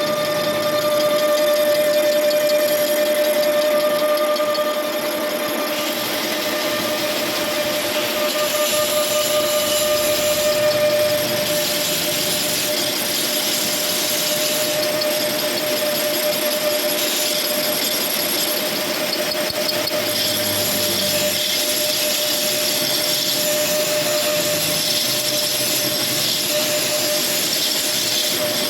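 A workshop machine's motor running steadily with a constant whine, a little louder for the first few seconds and then level.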